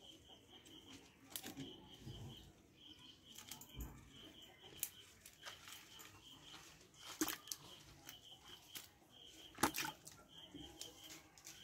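Faint handling of a cast net on mud, with snails picked out of the mesh by hand: a few scattered sharp clicks, the loudest about seven and ten seconds in. Under it runs a steady, evenly pulsing high chirp, like an insect.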